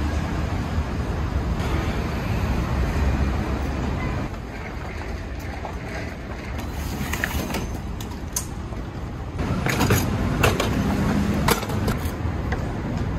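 City street traffic noise, a steady low rumble of passing cars and buses. In the second half it is joined by scattered knocks and clatter as plastic crates and wooden panels of a street-food cart are handled.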